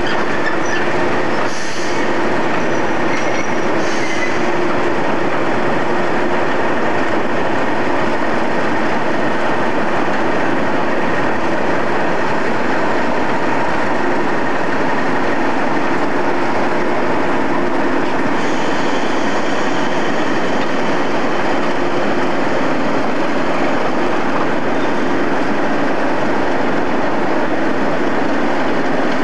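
British Rail Class 37 diesel locomotives running, their English Electric V12 engines giving a loud, steady note with held tones, and a higher whine joining about two-thirds of the way through.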